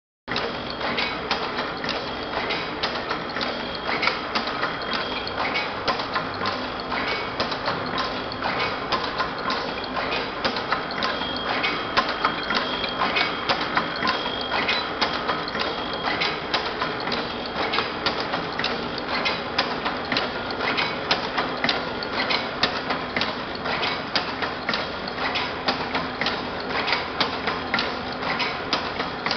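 Twist-wrap packaging machine with a turret feeder running steadily: a rapid, even clatter of mechanical clicks, with a thin high whine through the middle stretch.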